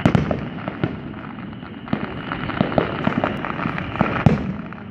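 Aerial fireworks bursting: a run of bangs and crackles at irregular intervals, loudest just after the start and again about four seconds in.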